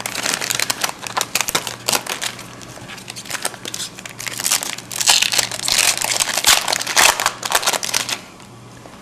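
Foil trading-card pack wrapper crinkling and crackling as it is torn open and crumpled by hand, busiest near the end before stopping abruptly.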